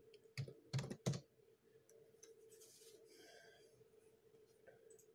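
Computer keyboard keystrokes: three sharp key presses in the first second or so, then a faint steady hum.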